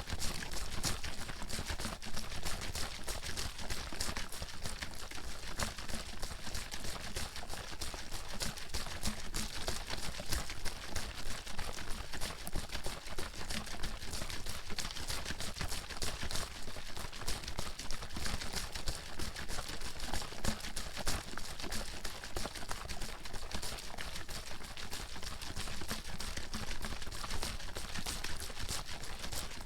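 Bottle of water being shaken hard, the water sloshing and slapping inside in a rapid, continuous rhythm of short strokes.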